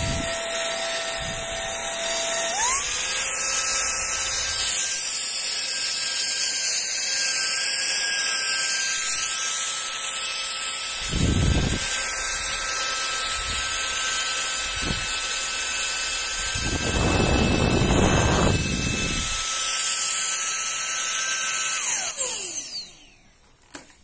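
Xiaomi Jimmy JV51 cordless handheld vacuum cleaner's high-speed digital motor running with a steady high whine, its pitch stepping up about two and a half seconds in. A few brief low rushes come through the whine. Near the end the motor winds down, falling in pitch, and stops.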